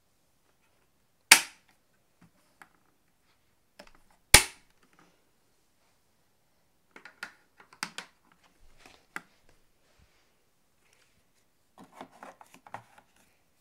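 Hard plastic parts of a vacuum cleaner being handled and clicked: two loud sharp snaps about three seconds apart, then scattered lighter clicks and rattles.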